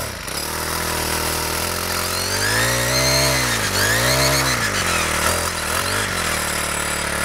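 Four-stroke string trimmer engine running just after starting, revved up twice in quick succession a few seconds in, then blipped lightly a couple more times before settling back to idle.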